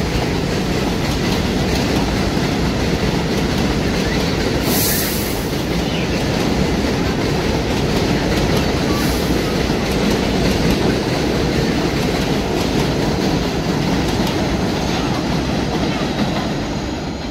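Subway train running over an elevated steel structure: a steady heavy rumble with wheel clatter, two brief high hisses about five and nine seconds in, easing off near the end as the train pulls away.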